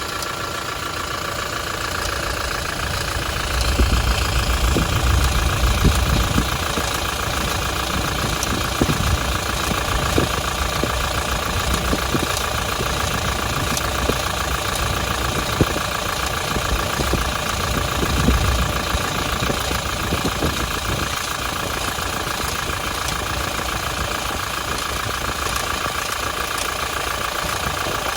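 Toyota Hilux 1GD-FTV 2.8-litre four-cylinder turbodiesel idling with a steady, fast rattle over the running; the uploader takes this noise as the sign of a worn timing chain due for replacement. A deeper low rumble swells twice, about four to six seconds in and again near eighteen seconds.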